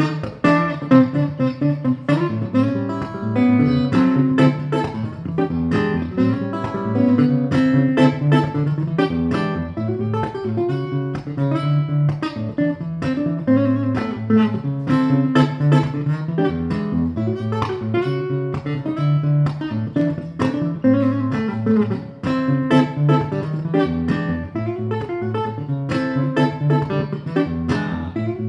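Solo fingerstyle acoustic guitar playing a flowing original instrumental, with plucked bass notes under a melody line.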